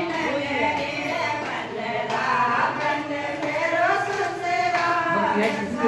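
A group of women singing a Hindu devotional bhajan together, voices in unison with long held, wavering notes.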